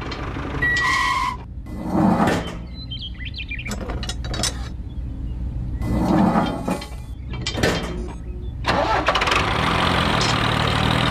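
A few short clatters, then a tractor engine starting about two-thirds of the way in and running steadily.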